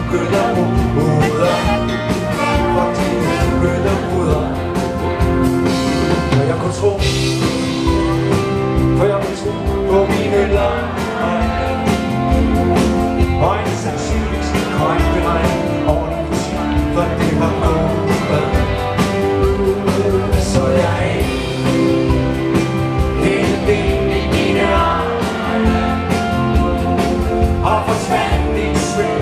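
Rock band playing live through a PA: drums, electric guitars and bass under a male lead vocal.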